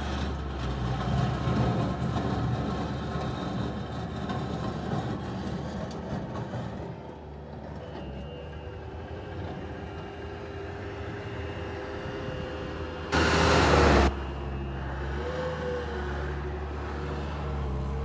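Bobcat 883 skid-steer loader's diesel engine running as the machine drives and turns, with a thin whine over the engine hum that wavers in pitch near the end. About thirteen seconds in, a loud rush of noise lasts about a second.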